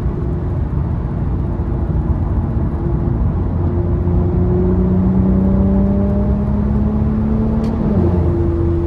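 Infiniti Q50's engine with aftermarket intakes, pulling under acceleration: the engine note climbs steadily from about four seconds in, then drops abruptly near the end as the car shifts up.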